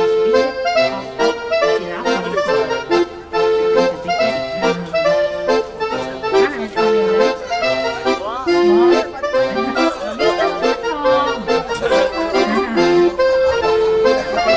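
Background music: an instrumental tune with many quickly changing melody notes.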